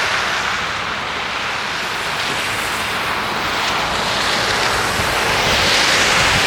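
A loud, steady rushing noise with no distinct tone. It cuts in and out abruptly and grows a little brighter late on.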